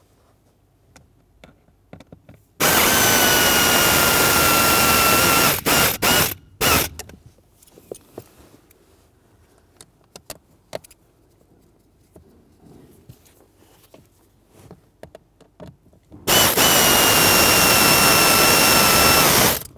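Cordless electric ratchet running in two bursts of about three seconds each, with a few short blips after the first, driving the blend door actuator's lower mounting screws. Its whine drops slightly in pitch during each run.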